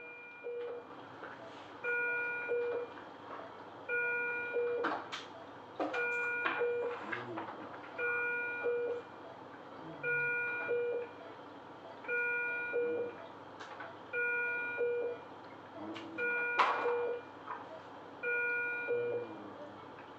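Electronic alarm from ICU bedside equipment: a chime of several pitches about a second long, repeating every two seconds. Short clicks and rattles from handling run alongside; the loudest comes about three-quarters of the way through.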